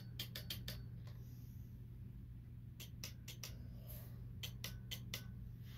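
Faint steady low electrical hum, with a few scattered clusters of light clicks and taps.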